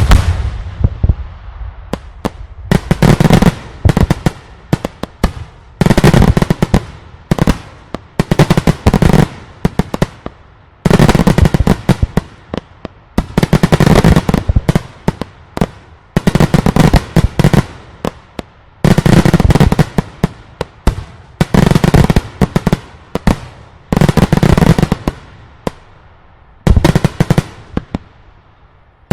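Daylight fireworks display: loud, rapid volleys of sharp bangs and crackling reports, coming in bursts of a second or two with brief lulls between.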